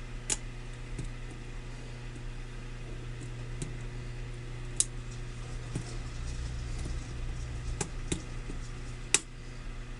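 Lock pick working the pins of a pin-tumbler lock under tension: faint scratching ticks and about six sharp clicks as pins are lifted and set, over a steady electrical hum.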